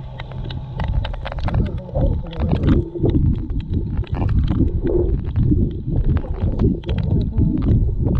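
Muffled underwater water movement heard through a GoPro's waterproof housing: an irregular low rumbling and sloshing with many small clicks and knocks, growing louder about a second in.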